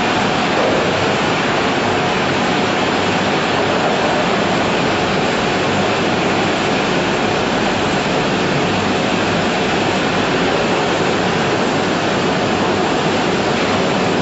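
Steady, loud rushing noise of poultry-processing line equipment running, with no distinct knocks or tones.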